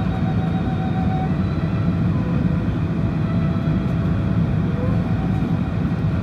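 Steady rumble of an Airbus A380 airliner in flight, with faint steady engine whines above it.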